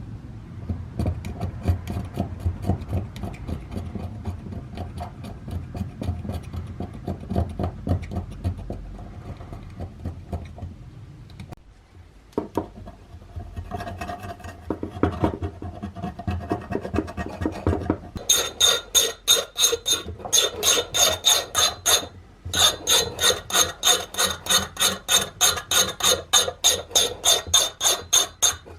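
Rasping, back-and-forth abrasive strokes worked by hand on the rusty sheet metal of a Dietz D-Lite No. 90 oil lantern. The strokes are quick and dense at first. In the second half they turn into a loud, regular rhythm of about three strokes a second, with the thin metal ringing on each stroke and one short pause.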